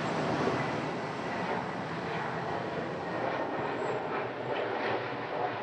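Steady jet-engine rumble from a landing Airbus A321 airliner.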